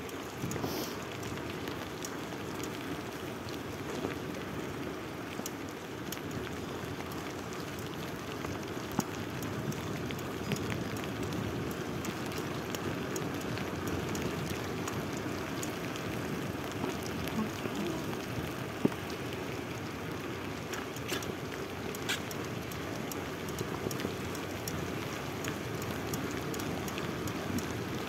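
Bicycle riding along a wet asphalt path in the rain: a steady wet hiss from the tyres and rain, with many light clicks and rattles and a few sharper knocks.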